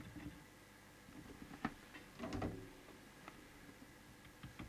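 Faint clicks and taps of a hand tool working at the coils on a CB radio's circuit board, with one sharper click and then a duller knock around the middle, over a faint steady hum.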